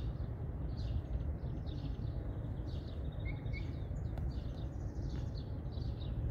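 Outdoor ambience: a steady low rumble with small birds chirping and twittering throughout.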